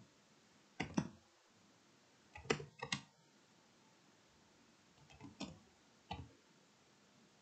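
Computer keyboard keystrokes: four short bursts of key clicks, a few keys each.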